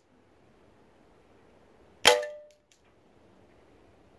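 A single shot from an Umarex Beretta 92FS CO2 pellet pistol about two seconds in: a sharp crack with a brief metallic ring after it, as the pellet strikes the paper target in its steel pellet trap.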